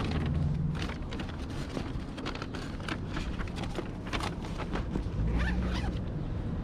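A paper takeout bag rustles as it is set into an insulated delivery bag, and then the bag's zipper is pulled closed in a run of quick, scratchy strokes.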